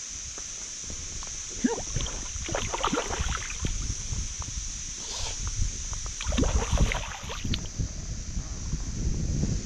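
Water splashing and sloshing at a landing net held at the surface, in two bouts, as a trout is brought into the net. A low wind rumble runs underneath.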